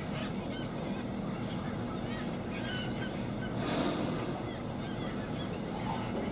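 A flock of gulls calling over feeding humpback whales: many short, scattered cries over a steady low hum, with a brief louder whoosh a little past the middle.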